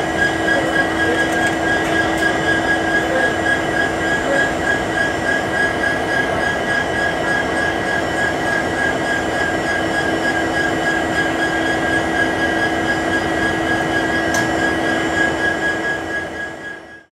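Diesel locomotive running while standing close by: a steady drone with a constant high whine over it. The sound fades out near the end.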